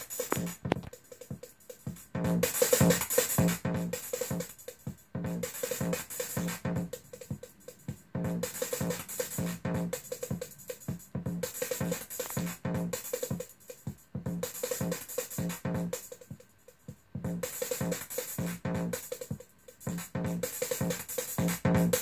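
Electronic drum-machine pattern from Hexinverter Mutant Drums modules in a modular synthesizer, playing a steady repeating beat. It drops out briefly several times and comes back as the patch cables are moved.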